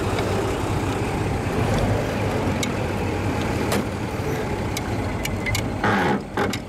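1920 Locomobile Model 48's six-cylinder engine running steadily as the open car drives along, with road and wind noise. A few sharp clicks come through, and a brief louder rush of noise comes near the end.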